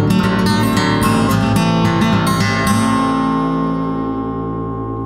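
Music with quick plucked string notes over a held chord, settling about three seconds in onto a single chord that rings on and slowly fades.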